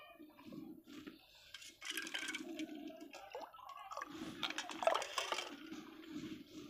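Lassi ladled from a steel pot into a glass: liquid pouring and splashing, with light clinks of the steel ladle against the pot.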